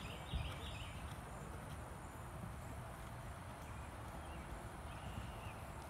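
Hoofbeats of a horse being ridden round a hunter course, with a louder thud about a third of a second in.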